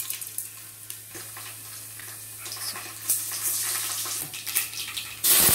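Fenugreek seeds crackling quietly in hot oil in an aluminium pot. Near the end comes a sudden loud sizzle as wet ground masala hits the hot oil.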